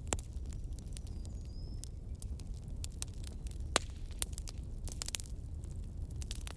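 Log fire crackling: irregular sharp pops and ticks over a steady low rumble, with one louder pop a little past the middle. A faint short whistle sounds about a second and a half in.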